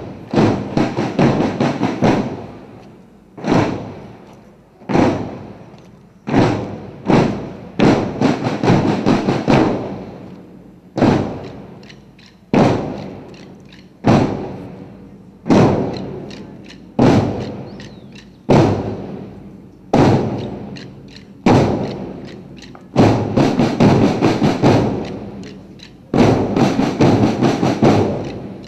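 Marching drums beating a slow, steady cadence: a heavy stroke about every second and a half, each ringing out, with runs of quicker strikes in between several times.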